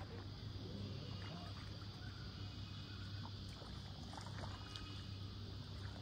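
Quiet shoreline ambience of shallow river water lapping around a wading angler's legs, over a low steady rumble.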